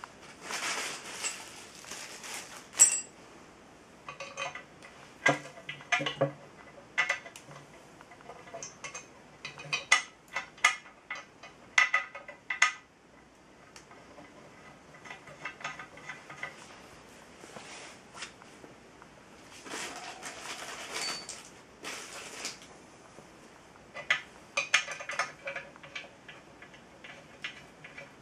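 Irregular metal clinks and taps of hardware being handled against the cast-iron base of a benchtop drill press as its column is fitted, with a couple of short bursts of cardboard rustling.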